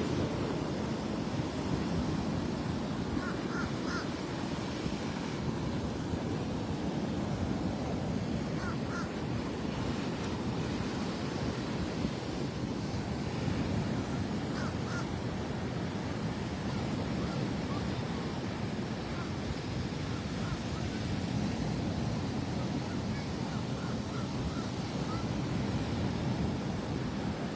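Rough Gulf surf breaking and washing ashore in a steady rush, with a few faint short high notes now and then.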